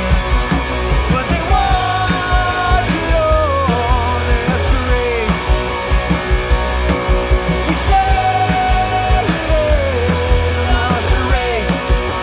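Punk rock band playing live: distorted electric guitars, electric bass and a drum kit with cymbals driving a loud, steady song, with a melody line sliding over the top.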